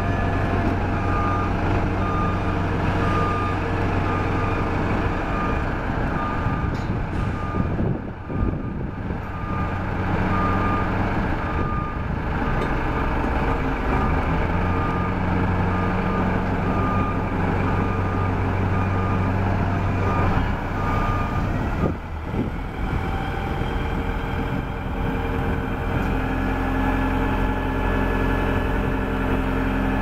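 1999 SkyTrak 10054 telehandler's diesel engine running steadily, with its reversing alarm beeping at an even pace, about once a second. The beeping stops about two-thirds of the way through and the engine runs on alone.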